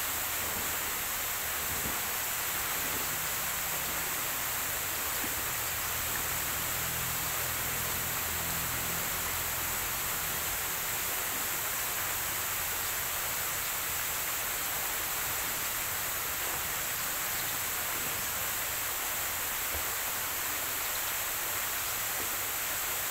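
Steady, even hiss of outdoor ambience with no distinct events, and a faint low hum for several seconds in the first half.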